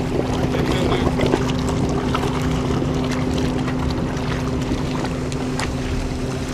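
Ski boat's engine idling with a steady hum, with wind buffeting the microphone.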